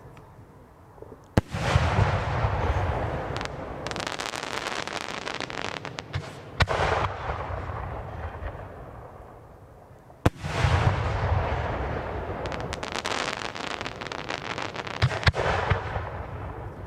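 Fireworks going off. A sharp bang about a second in is followed by several seconds of dense crackling, and there is another bang partway through. A second loud bang comes around two-thirds of the way in and opens a second long stretch of crackling that fades near the end.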